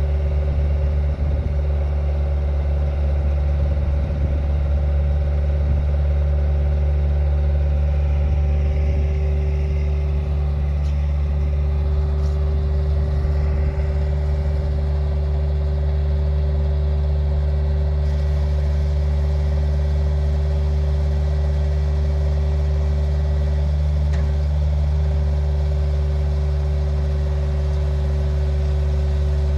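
Bobcat S130 skid-steer loader's diesel engine running at a steady speed, with a constant low hum and a steady higher tone, as it powers a hydraulic drive head that screws a steel ground screw into the ground.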